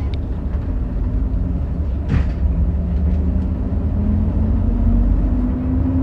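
Diesel railcar engine running with a heavy low rumble, its note rising steadily through the second half as it revs up. A brief burst of hiss comes about two seconds in.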